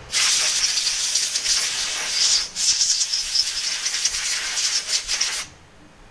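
Compressed-air blow gun hissing in two long blasts, with a short break about two and a half seconds in, stopping shortly before the end.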